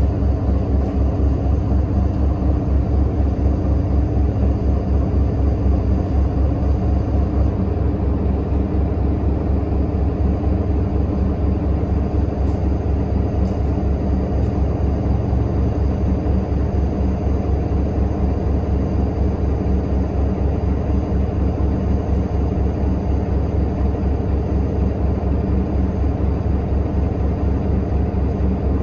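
Diesel engine of a Nova Bus LFSA articulated city bus running, heard inside the passenger cabin from the rear section. It is a steady, loud low rumble with an even throb.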